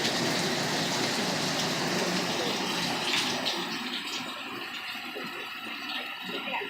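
Heavy thunderstorm rain pouring steadily, easing off noticeably about four seconds in.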